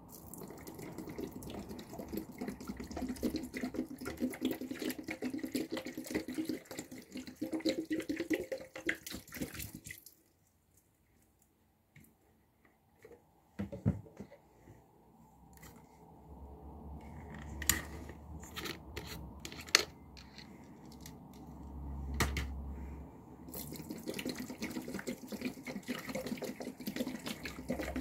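Liquid soap poured from a plastic bottle onto car sponges sitting in water in a plastic tub, splashing and running steadily. It stops about ten seconds in, and after a knock and some handling noise the pouring starts again near the end.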